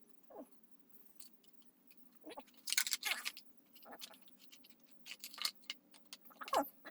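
Scattered light clicks, rattles and a few short squeaks of things being handled, with brief louder clusters about three seconds in and again past the five-second mark.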